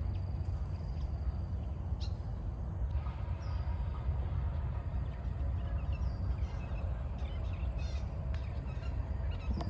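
Wind rumbling on the microphone, with faint bird calls chirping through it, more of them in the second half.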